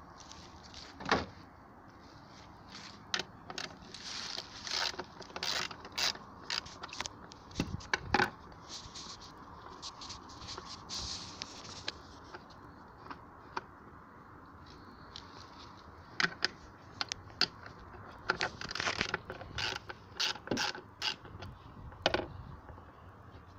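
Hand work under a car bonnet: clicks, clatters and scrapes as the plastic air-filter housing is taken apart and a socket ratchet wrench clicks on the bolts, the clicking thickest in the second half.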